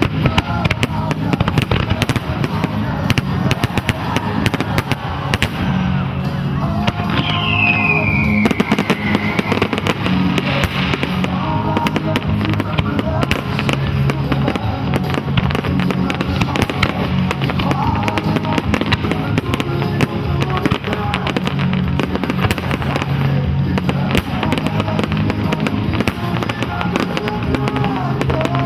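Fireworks display: dense crackling and popping of shells going off continuously over loud accompanying music. A single falling whistle sounds about seven seconds in.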